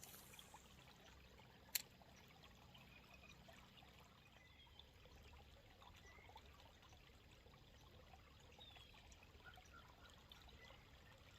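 Near silence: faint flowing water of a river current, with a single sharp click a little under two seconds in.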